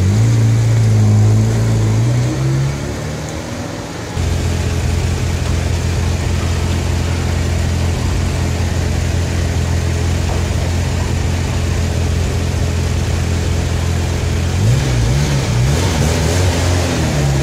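Ferrari Mondial T's V8 engine running at low revs as the car moves off, then idling steadily. Near the end it is revved briefly a few times, the pitch rising and falling with each blip.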